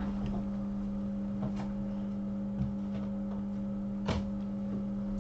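Steady electrical hum with a few short, soft clicks and knocks, about one or two seconds apart, from small objects handled on a workbench.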